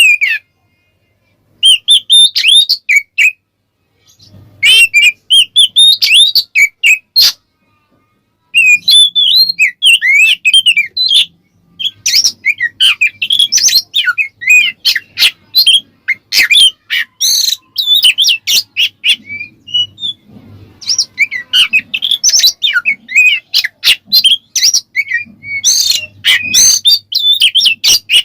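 An oriental magpie-robin (kacer) sings a loud, fast 'ngeplong' song. It is a rush of varied whistles, chirps and sharp clicks, in bursts with short pauses at first and almost unbroken from about a third of the way in. This is the provoking full song used to make other kacer answer and get worked up.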